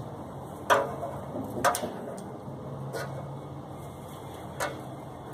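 Hand tools clicking and clinking on the metal motor shaft and fan-blade hub of an HVAC condenser fan assembly: about four sharp separate clicks spread over several seconds, with a steady low hum behind.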